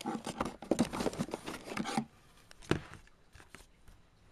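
Hands rummaging in a cardboard box, with cables and packaging rustling and scraping against the cardboard for about two seconds. After that comes a single sharp knock and a few light ticks.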